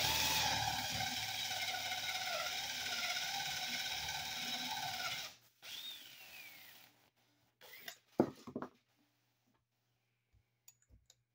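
Cordless drill running under load as it bores into the wooden sill plate, a steady motor whine for about five seconds before it stops. A few short knocks and clicks follow a couple of seconds later.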